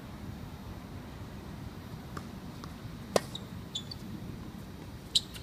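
Tennis ball struck by rackets and bouncing during a doubles rally: a few sharp pops, the loudest about three seconds in and another near the end, over a steady low background hum.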